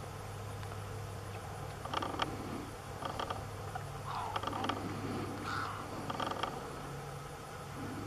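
Short bird calls from a feeding flock of wading birds, repeated about five times between two and seven seconds in, over a steady low hum.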